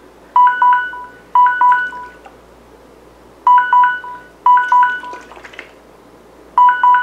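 Electronic alarm beeping in a repeating pattern: pairs of quick three-beep bursts about a second apart, returning every three seconds or so, a timer signalling that five minutes are up. Faint handling clicks about five seconds in.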